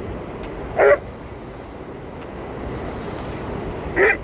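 A dog barking twice, two short loud barks about three seconds apart, over a steady background rush.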